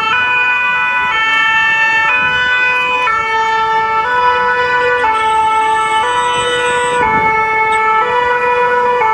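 Emergency vehicle's two-tone siren, alternating between a higher and a lower pitch about once a second, over faint street noise.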